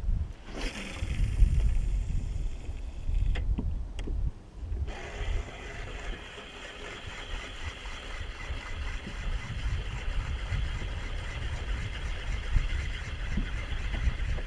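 A fishing reel being cranked fast to bring a topwater popper straight back, heard from about five seconds in as a steady whirring hiss. It follows a short hiss near the start and two clicks. Wind rumbles on the microphone throughout.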